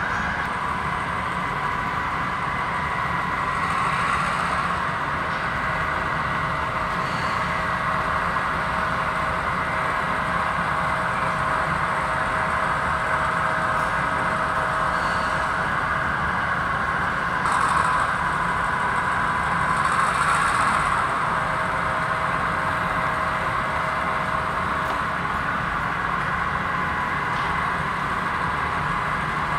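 HO scale model train running on the layout: a steady locomotive engine drone with a few held tones, swelling briefly twice.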